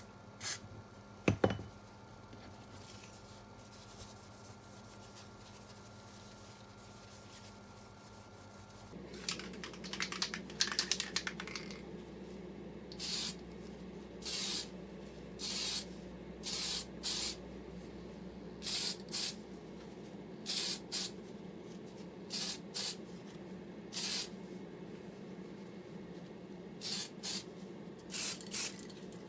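Spray paint hissing from an aerosol can in a string of short bursts of about half a second each, with pauses between, starting a little under halfway through. Before that, a few clicks and some clattering, and a low steady hum comes in about a third of the way through.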